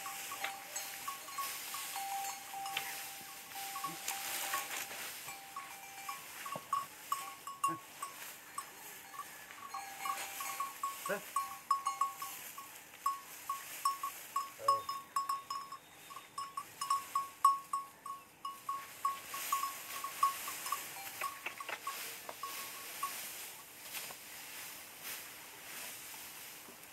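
Small bells on working bullocks clinking irregularly, several times a second, as the bullocks tread harvested crop straw for threshing; the clinking thins out in the last few seconds.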